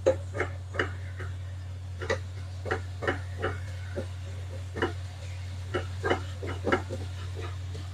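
A spatula stirring drumstick leaves in a frying pan, knocking and scraping against the pan in irregular clicks about two or three times a second, over a steady low hum.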